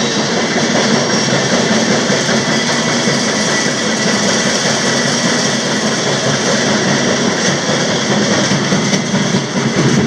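Moving freight train heard from aboard, on the end platform of a freight car: a loud, steady running noise of steel wheels on rails and the rolling cars.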